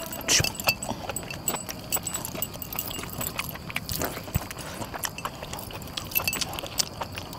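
Eating by hand: wet chewing and lip-smacking with irregular small clicks, as cooked goat meat is pulled apart and eaten. Metal rings and bracelets clink now and then.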